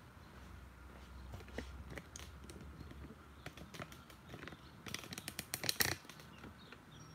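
Handling noise at close range: scattered clicks and taps as the recording phone or camera is touched and adjusted, with a quick run of louder clicks about five seconds in.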